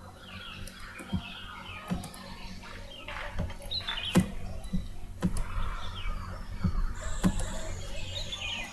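A dozen or so short, scattered clicks over a low steady background hum.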